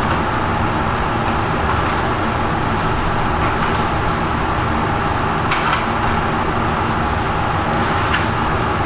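Steady background hum and rush, even throughout, with a couple of faint clicks about five and a half and eight seconds in.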